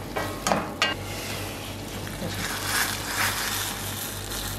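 Onions, tomatoes and green lentils sizzling in a hot steel pan while a wooden spoon stirs them, with a few sharp knocks in the first second.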